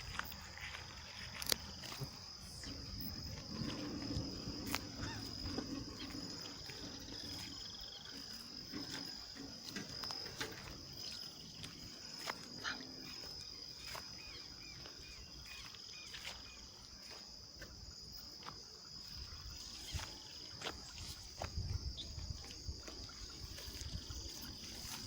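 Insects calling in one unbroken high-pitched trill, with scattered clicks and a few low rumbles.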